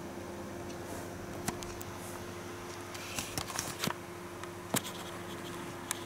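Soft scattered clicks and brief rustles, a cluster of them about halfway through and more near the end, over a steady low hum.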